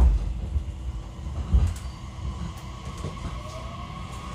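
Running sound inside a JR Kyushu 813 series EMU motor car on the move: a low rumble with two heavy thumps from the wheels and track, one right at the start and one about a second and a half later. A steady whine from the traction equipment sets in, joined near the end by a faint rising tone as the train picks up speed.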